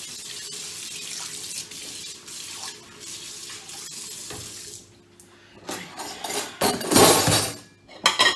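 Kitchen tap running into the sink, filling a bowl left to soak, then shut off about five seconds in. Near the end comes a louder, shorter rush of noise.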